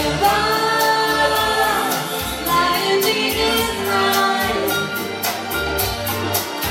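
Live band music: a woman singing held, melodic lines over percussion that keeps a steady beat of about three strikes a second.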